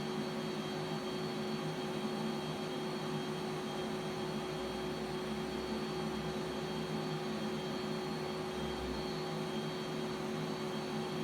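CNC milling machine running with a steady hum and hiss, holding a constant pitch throughout.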